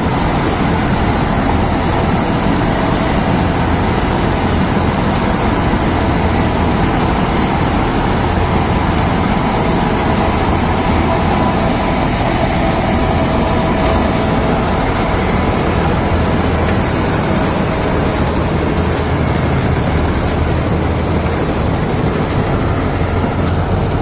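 John Deere 5310 tractor (55 hp) running steadily under heavy load while driving a tractor-mounted combine harvester through tall, tough white corn stalks. The hard stalks keep loading the machine and jamming its reel.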